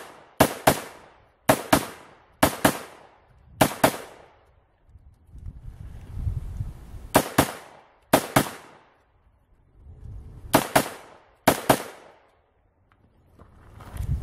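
AR-15 rifle fired in quick double taps, the two shots of each pair about a fifth of a second apart. The pairs come in three groups: four pairs about a second apart, then two, then two, with low rustling of movement between groups.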